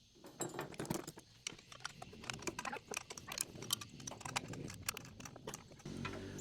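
Irregular metallic clicks and clinks of a wrench tightening the nuts on the carburetor mounting bolts of a Honda GX200 engine. A low steady hum comes in near the end.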